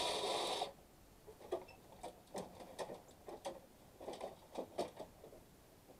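A cordless drill runs briefly, backing out a screw, and stops about half a second in. After it come light, irregular clicks and knocks as the air-conditioner's plastic control housing and metal parts are handled.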